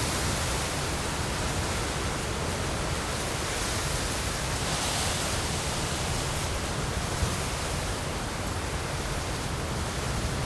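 Autumn wind blowing through trees, leaves rustling in a steady hiss that swells with a gust about five seconds in.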